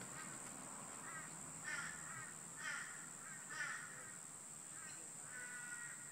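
A bird calling: four short calls roughly a second apart, then a longer, steadier call near the end, over a steady high-pitched drone.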